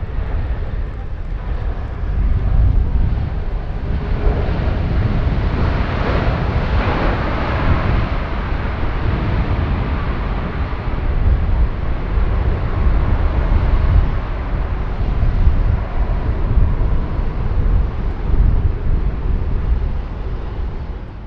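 Boeing 747-400 freighter's four GE CF6-80C2 turbofans during the landing rollout, a loud rushing jet roar over a deep rumble. The roar swells about six to eight seconds in as reverse thrust spools up, then eases as the jet slows down the runway.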